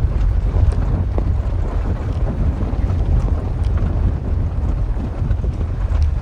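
Wind buffeting the microphone: a loud, steady low rumble with a rushing hiss over it.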